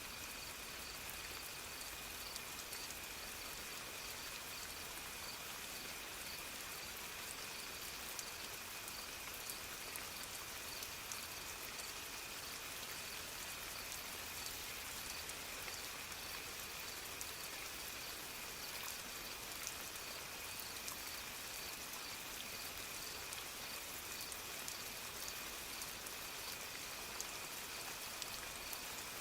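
Steady soft rain with scattered drips. Under it run a faint steady high-pitched tone and a regular high pulse, about two a second.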